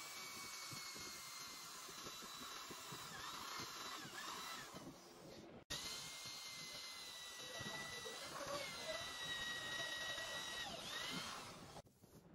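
Handheld electric drill boring holes through a pine brace into a wooden base: a steady motor whine in two long runs, broken off abruptly about halfway, its pitch sagging and recovering a few times as the bit loads in the wood.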